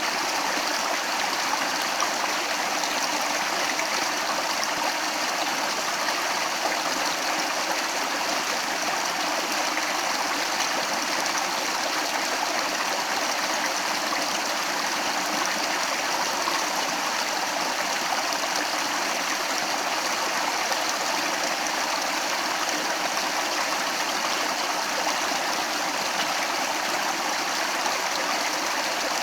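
Stream water flowing steadily, an even rushing and babbling with no breaks.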